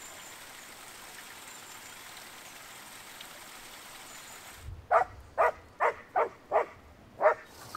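Steady rushing of a stream, then, about five seconds in, a dog yaps six times in quick succession.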